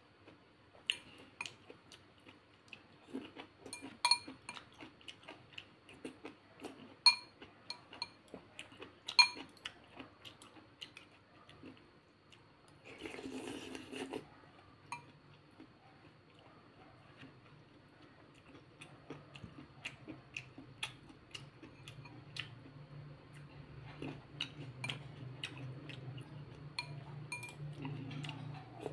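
Metal chopsticks and a spoon clinking and scraping against a ceramic bowl while rice-noodle soup is eaten, with soft chewing. A short slurp from the spoon about halfway through.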